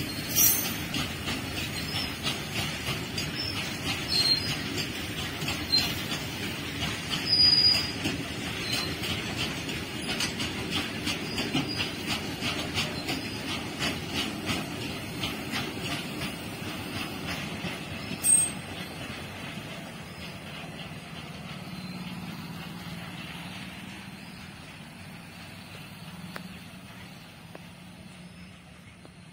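Indian Railways freight train of loaded open-top wagons rolling past at speed: a fast, steady clickety-clack of wagon wheels over rail joints, with a brief high wheel squeal about seven seconds in. After about twenty seconds the clatter fades away as the train passes.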